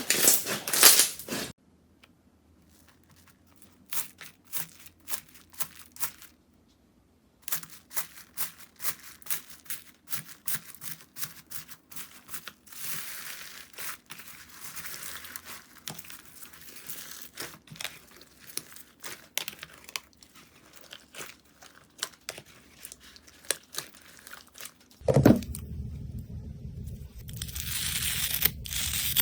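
Slime being squeezed, stretched and pulled apart by hand: a run of small crackling clicks and tearing sounds broken by short pauses. Near the end it turns to a louder, fuller squishing sound.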